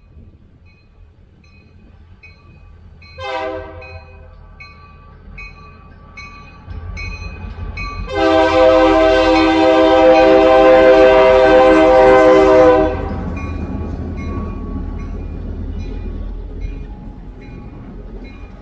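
Diesel freight locomotive's air horn sounding a short blast, then one long loud blast of about five seconds, over a crossing warning bell ringing about twice a second. A low rumble of the approaching locomotives builds under it.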